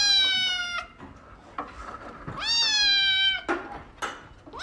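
A cat meowing: two long, drawn-out meows, each about a second long and sliding slightly down in pitch. The first is already under way at the start and the second comes about two and a half seconds in.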